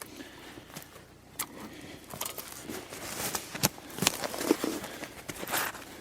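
Scattered crunches and sharp clicks of footsteps and of hands handling a snared wolf carcass and its wire snare, with a few louder clicks spread through.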